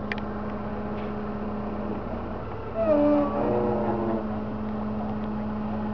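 An engine idling with a steady hum and low rumble. A short click comes right at the start, and a brief louder call with wavering pitch about three seconds in.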